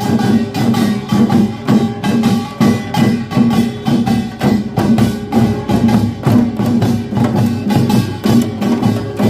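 Korean pungmul percussion band playing: clanging kkwaenggwari small gongs and drums beating a steady, fast rhythm, with sustained gong ringing.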